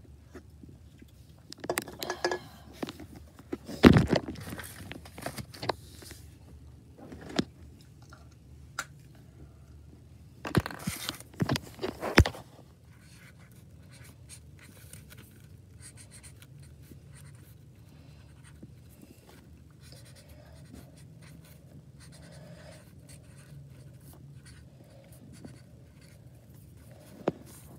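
Felt-tip marker writing on a small spiral notepad, a faint, even scratching through the second half. Before that come several sharp knocks and clatters of things being handled and set down, the loudest about four seconds in and a cluster around eleven seconds.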